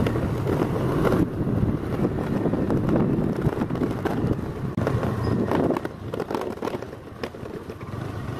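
A vehicle moving along a rough road: a steady engine-and-road rumble with wind on the microphone, easing off a little near the end.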